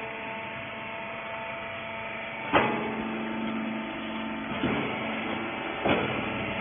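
Hydraulic rag baler running with a steady motor-and-pump hum, broken by three sharp metallic knocks.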